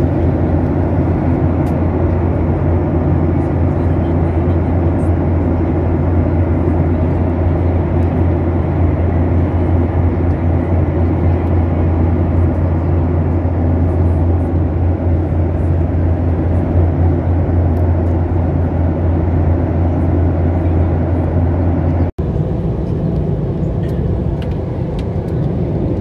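Steady airliner cabin noise in flight, the engines and airflow running with a strong low hum. A split-second dropout comes about four seconds before the end, after which the low hum is gone and the noise is thinner.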